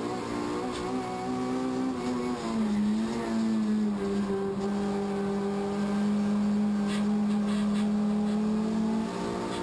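Race car engine heard from inside the cockpit, its revs rising and falling over the first few seconds, then held steady for about five seconds through a long corner before dropping off near the end.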